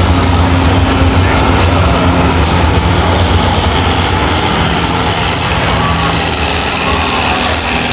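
Pulling tractor's engine running hard and steady under load as it drags a weight-transfer sled down the track.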